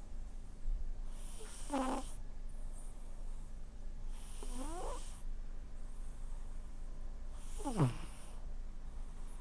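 A cat snoring in deep sleep: three snores about three seconds apart, each a breathy hiss with a short squeaky note that slides in pitch.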